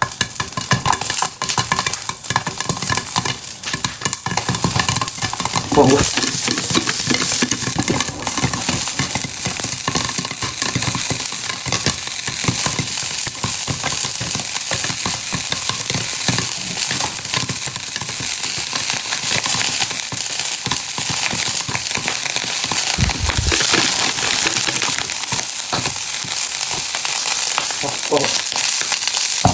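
Popcorn popping in hot oil in a covered pan: a dense, steady crackle of many rapid pops over a sizzle.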